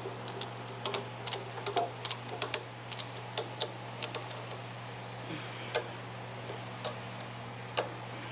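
A ratchet being worked in short strokes: a quick, irregular run of sharp clicks for the first few seconds, then a few single clicks spaced about a second apart.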